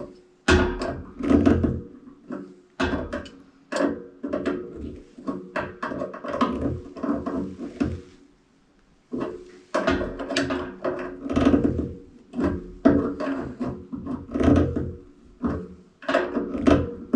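Water-pump pliers working a radiator valve on microbore pipe: repeated metallic knocking and clanking in short runs, with a pause about halfway through.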